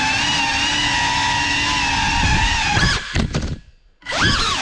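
Geprc Cinelog35 cinewhoop's brushless motors and ducted propellers whining steadily, heard from the onboard camera. About three seconds in the pitch wavers, then the whine drops almost to nothing as the throttle is cut near the floor, and it comes straight back with quick rises and falls in pitch as the throttle is punched again.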